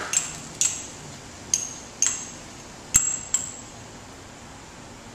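A metal utensil clinks against a cooking pan about six times, each clink short with a brief high ring, over the faint steady sizzle of the heating curry base. The clinks stop about three and a half seconds in.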